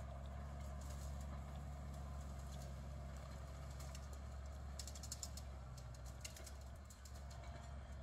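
New Holland tractor pulling a Claas twin-rotor rake through cut grass, its engine running steadily. A run of light clicks comes about five to six seconds in.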